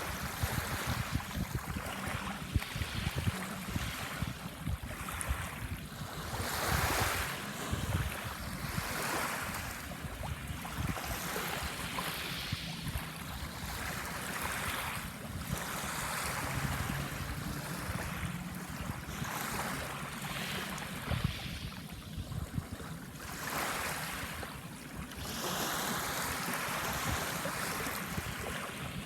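Sea waves washing in on a sandbar shore, the surf swelling and falling back every few seconds.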